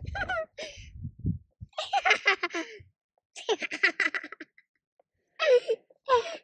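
A young boy laughing and giggling in several short bursts, with a low rumble in the first second and a half.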